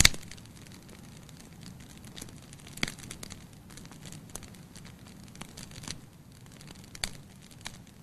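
Wood logs burning in a fireplace: crackling with scattered sharp pops over a low steady rush of the flames. The loudest pop comes right at the start, with further pops about three and seven seconds in.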